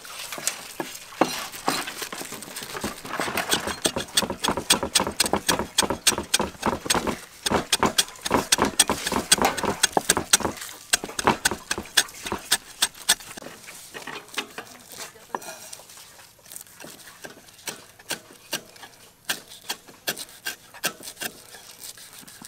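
Cleaver chopping green herbs on a round wooden chopping block: rapid, repeated knocks, thinning out and getting quieter a little past halfway.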